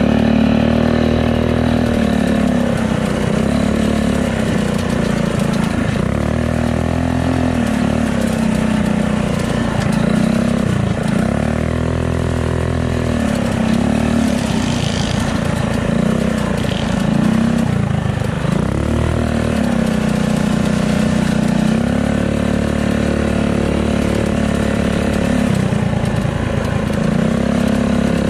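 Mini bike's small single-cylinder engine running at speed. The pitch dips briefly every few seconds as the throttle is eased off, then climbs again as it is opened back up.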